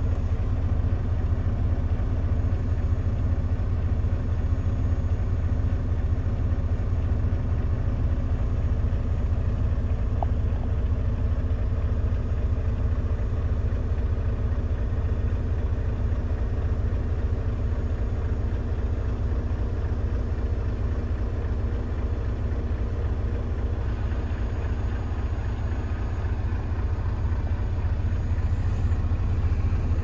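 Semi-truck's diesel engine idling with a steady low rumble that does not rise or fall.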